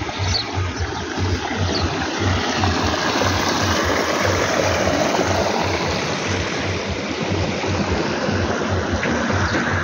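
Background music with a steady low beat over a loud, steady rushing noise.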